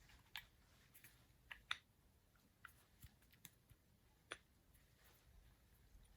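Faint, scattered clicks and light taps of small metal milling-machine accessories being handled, the sharpest a little under two seconds in and again just past four seconds.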